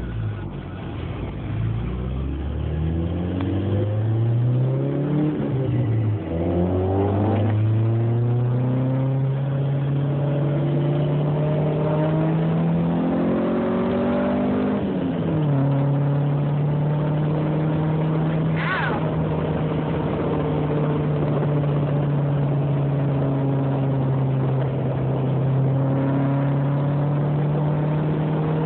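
Turbocharged Honda Civic GSR four-cylinder engine being revved: the revs climb slowly twice, dropping back each time, then are held steady at a raised speed. A brief high whistle rises and falls just before the halfway point.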